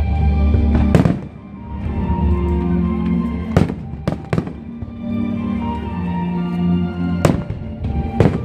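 Aerial fireworks bursting with sharp bangs, about six in a row at uneven intervals, over music playing throughout.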